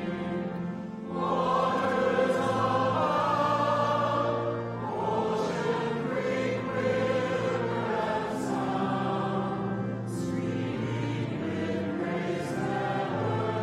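A large crowd singing a hymn together, in long held notes.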